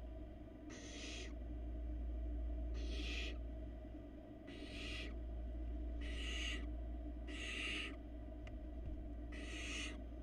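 Barn owl nestlings giving their hissing food-begging calls, the rasping 'snore' of the chicks: six rough hisses about half a second each, coming roughly every one and a half seconds, over a steady low hum.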